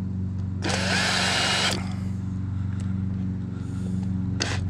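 Cordless screwdriver whirring in short bursts as it turns screws: one burst of about a second, then two brief ones near the end. A steady low hum runs underneath.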